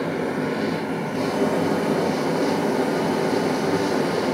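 Gas burner of a small metal-melting foundry running steadily, its flame swirling around a graphite crucible as it heats up. The noise gets a little louder about a second in.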